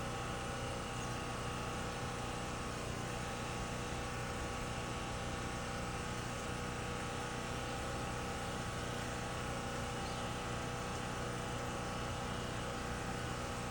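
Steady machine hum with several constant tones that holds unchanged throughout.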